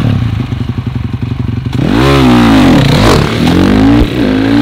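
KTM 690 SMC R single-cylinder engine idling with an even beat, then revved as the bike pulls away, its pitch climbing and falling back a couple of times, with a short break in the revs about four seconds in.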